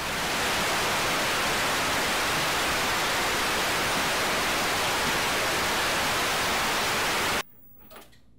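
Television static hiss, loud and even, that cuts off suddenly about seven seconds in, followed by a faint click.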